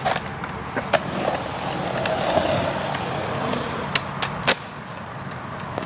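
Skateboard wheels rolling on concrete, with sharp clacks of the board against the ground: one about a second in, then a quick run of three clacks around four to four and a half seconds, the last the loudest.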